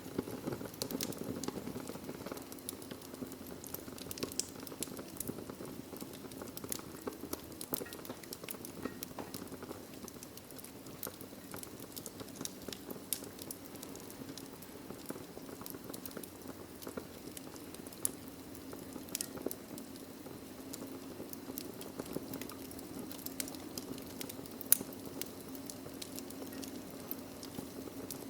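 Log fire burning in a fireplace, crackling with frequent irregular pops over a steady low rush of flames, with one sharper, louder pop near the end.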